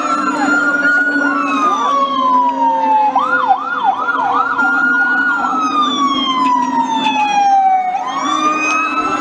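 Emergency vehicle siren. A wail rises and holds, slides slowly down, then switches to a fast yelp about three seconds in before wailing up again near the end, over a steady low tone.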